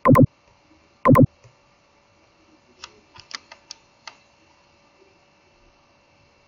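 Computer mouse button clicks: two loud, sharp clicks about a second apart, then a quick run of about six fainter clicks about three seconds in.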